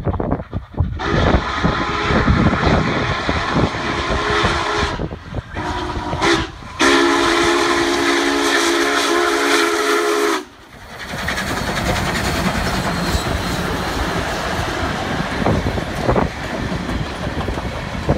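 Union Pacific 844, a 4-8-4 steam locomotive, blowing its steam whistle, several notes sounding together, as it reaches a grade crossing: short blasts, then one long blast of about four seconds that cuts off about ten seconds in. The heavy noise of the locomotive surrounds the blasts. After the cut-off comes the steady noise of the train passing close.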